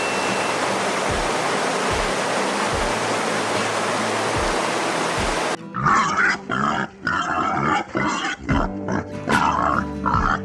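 A steady rushing noise like falling water over a slow low beat, then, about halfway through, an abrupt change to an animal's short repeated grunts and squeals, several to a second.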